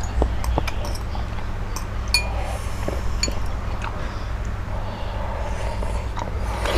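Eating utensils clinking lightly against dishes, a scattering of short clicks and taps, over a steady low hum.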